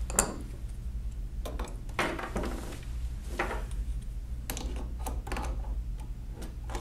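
Hand tools, a screwdriver and a Vise-Grip wrench, clicking and scraping against the calculator's steel parts and being set down on a wooden table: a sharp click about a quarter second in, then scattered light clicks and short scrapes. A steady low hum runs underneath.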